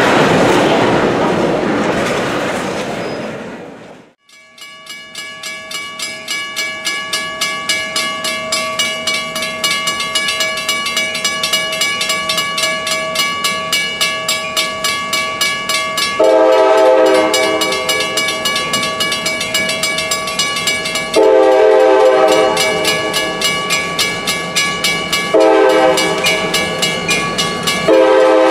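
Freight cars rolling past on the rails, cutting off about four seconds in. Then a grade-crossing bell rings steadily at about two strokes a second. From about halfway, the approaching CSX diesel locomotive's horn sounds the grade-crossing signal over it: two long blasts and a short one, with the final long blast starting near the end.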